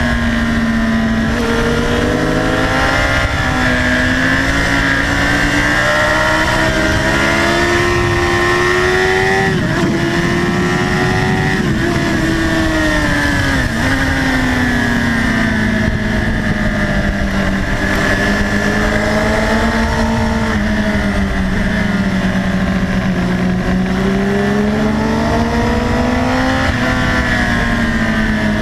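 Sport motorcycle engine at high revs, heard from on the bike, its pitch climbing and dropping again and again through gear changes and corners, with a deeper, rougher stretch about ten seconds in.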